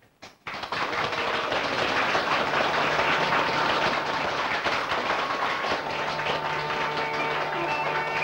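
Audience applauding; about six seconds in, uilleann pipes start up with a steady drone and a fiddle joins as a traditional reel begins.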